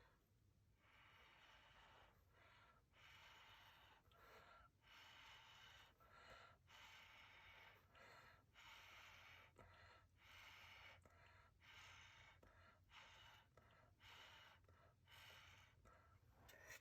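Faint, breathy puffs of air repeated about once a second, as a person blows paint outward across a canvas in an acrylic bloom pour.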